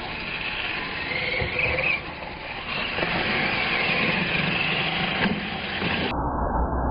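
Radio-controlled monster trucks racing on concrete, their motors whining high and rising in pitch as they accelerate.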